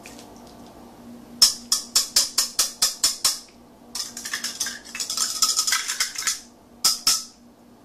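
Wire whisk beating a thin liquid marinade in a plastic bowl, in quick scraping strokes about four or five a second. After a short pause a second, faster run follows, then two sharp taps near the end.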